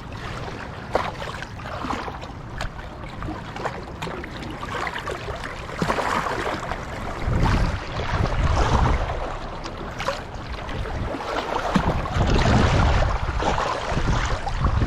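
River waves lapping and splashing against the bank in a strong wind, with gusts buffeting the microphone, heavier from about seven seconds in.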